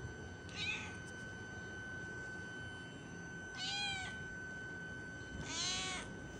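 Tabby cat meowing three times: a short high meow about half a second in, then two longer meows, each rising and then falling in pitch.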